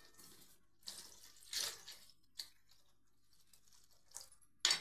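Water poured from a steel bowl into a kadhai of fried masala, with a ladle in the pan and a sharp clink near the end.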